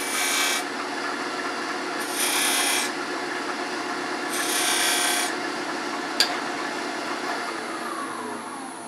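Wood lathe running with a steady hum as a point tool scrapes three short marks into the spinning wooden screwdriver handle, marking the spacing for burn rings. A sharp click comes about six seconds in, and then the lathe's hum falls in pitch as it slows down.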